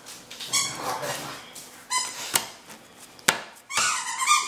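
A dog whining in short, high-pitched cries, four or five times, with two sharp snaps in between.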